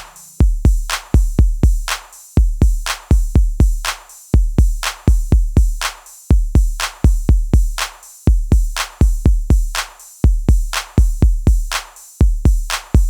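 Background music: a drum-machine beat of deep kick drums and sharp claps repeating in an even pattern.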